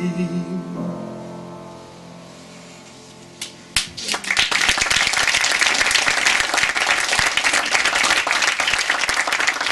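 The final sung note with vibrato ends and the accompanying chord fades away; after a couple of single claps, an audience breaks into steady applause about four seconds in.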